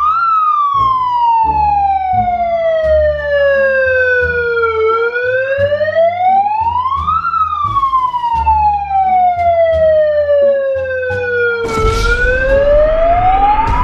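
Handheld loudspeaker's electronic police-style wail siren, rising quickly in pitch and falling slowly in long sweeps, about two and a half cycles. A burst of rough noise joins it near the end.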